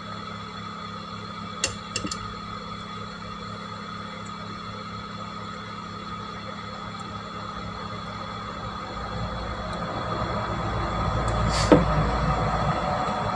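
A steady electrical hum, with a few small plastic clicks about two seconds in as a Redmi 2's body is fitted back together by hand. Over the last few seconds a low rubbing rumble builds, with one sharp knock near the end.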